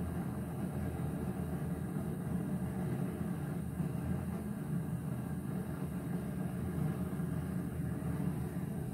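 Gas stove burner flame burning with a steady low rumble under an inverted iron tawa, cooking the top of a naan stuck to the griddle directly over the fire.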